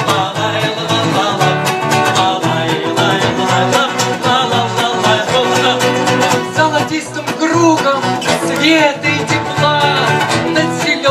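Instrumental break in a children's sing-along song, played with plucked strings.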